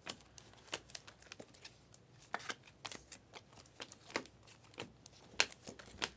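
2023-24 Panini Prizm basketball cards being slid one by one off a stack held in the hands: soft, irregular clicks and swishes of card stock.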